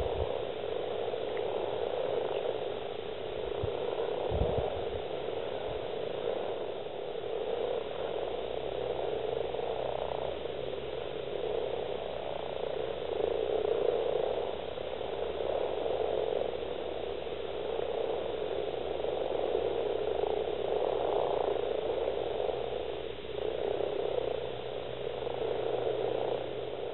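A dense chorus of many male common frogs (Rana temporaria) calling at a spawning gathering, a continuous croaking that swells and eases in waves. This is the males' breeding call while they clasp females in amplexus.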